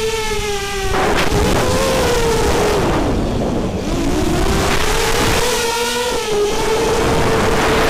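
Brushless motors and propellers of an FPV racing quadcopter whining through its onboard camera, with a steady wind rush over them. The pitch wanders with the throttle, dropping sharply about three seconds in and climbing back a second later.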